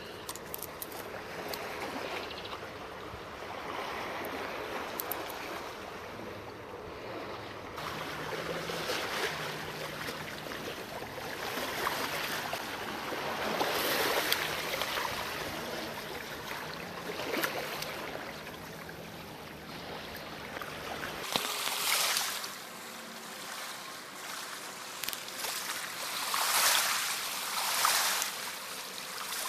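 Small sea waves washing and splashing over shoreline rocks, the surge swelling and ebbing every few seconds.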